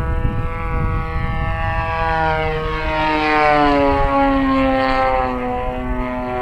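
Desert Aircraft DA-35 single-cylinder two-stroke gas engine on a 73-inch Laser 230z RC aerobatic plane running in flight, its propeller note loud and steady, then dropping in pitch about halfway through as it comes loudest.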